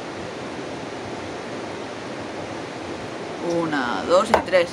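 Steady rushing of river water. Near the end, a person's voice and one sharp crack of an axe striking a log on a chopping block.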